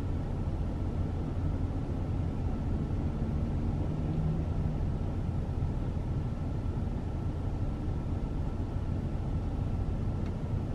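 Steady low rumble of a car's idling engine heard from inside the cabin, with a faint steady whine above it.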